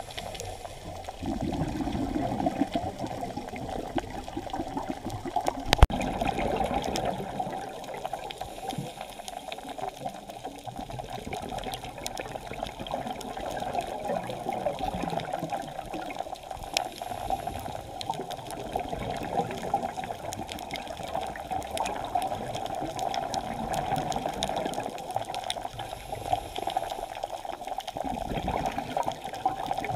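Underwater ambience heard through a camera's waterproof housing on a scuba dive: a steady muffled water rush, with louder low surges of scuba exhaust bubbles near the start and again near the end, and one sharp click about six seconds in.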